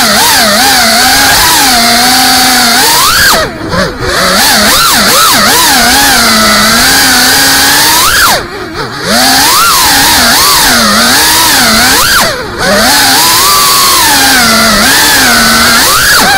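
FPV racing drone's brushless motors and propellers whining loudly, the pitch constantly rising and falling with throttle. The sound drops away briefly three times, a little before 4, 9 and 12.5 seconds in.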